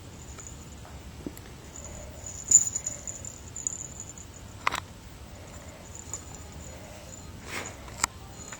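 Scattered light taps and rustles of a baby handling a box, with a few sharper clicks, the loudest about two and a half seconds in and another near five seconds.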